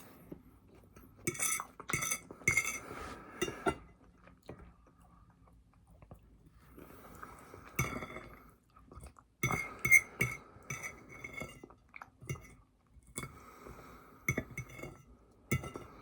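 Spoon clinking against a glass in several bursts of taps, each leaving a brief ring, with a little chewing between.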